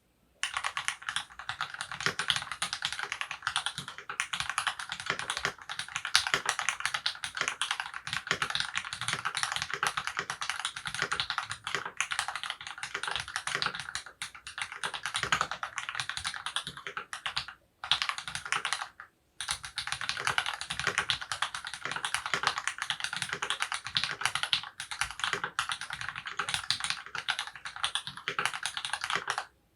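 Fast, continuous typing on a Monstargear XO K80 aluminium mechanical keyboard with lubed Cherry MX Black (Hyperglide) linear switches on a brass plate and GMK keycaps: a dense run of keystrokes. It stops briefly twice, a little past halfway.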